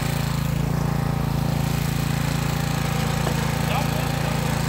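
Rear-tine rototiller's small gasoline engine running steadily at a constant speed.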